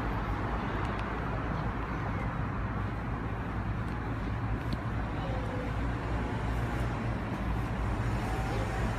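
Wuppertal suspension railway car running: a steady low hum over a constant rushing rumble.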